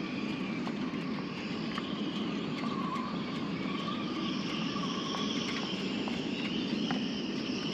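A steady outdoor drone with slowly wavering high-pitched bands, and a few faint clicks.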